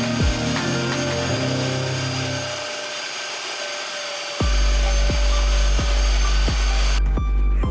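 Background music with a steady beat. The bass drops out for under two seconds near the middle, then comes back heavier.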